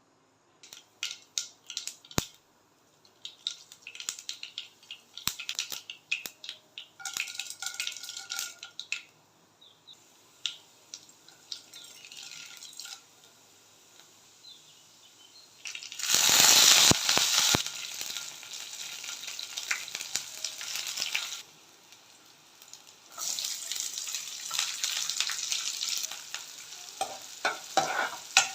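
Food frying in oil in a pan for vegetable upma while being stirred. Scattered crackles and clicks come first, and a loud surge of sizzling starts about sixteen seconds in, then a second spell of sizzling follows.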